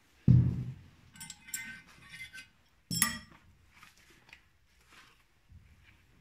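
Mercedes-Benz OM615 diesel cylinder head being handled on a workbench: a heavy thud as it is shifted, then light metallic clinks and, about three seconds in, a sharp metal knock with a brief ring, followed by a few faint taps.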